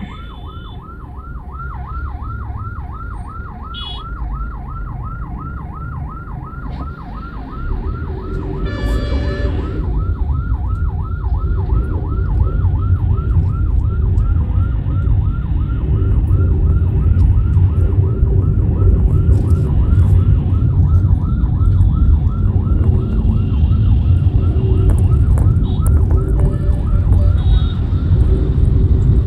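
Ambulance siren on the van alongside, sounding a rapid yelp that sweeps up and down several times a second throughout, over the low rumble of traffic. A vehicle horn blares once, about nine seconds in.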